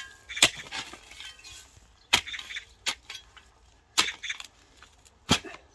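Steel round-point shovel blade jabbed into stony soil, striking stones with five sharp clinks, some followed by short scraping through dirt and gravel.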